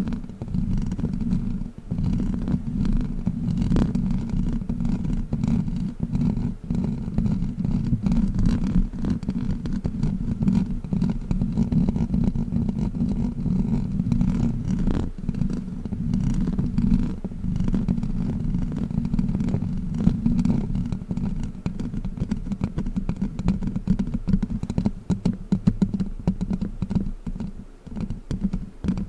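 A costume witch-finger toy rubbed and scratched right at the microphone: a steady low rumbling scrape with fine crackling, broken by a few short pauses near the end.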